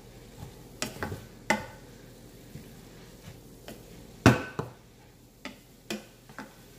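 Wooden spoon stirring fried cabbage in a stainless steel pan, knocking and scraping against the pan at irregular intervals, with the loudest knock about four seconds in.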